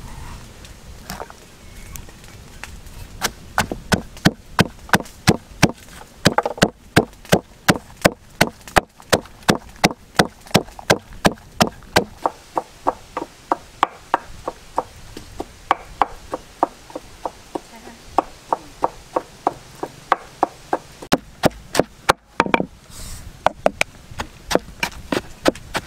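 A pestle pounds lemongrass, shallots and chillies in a large mortar to make a spice paste. The strikes are steady and even, about two a second, with a short break near the end.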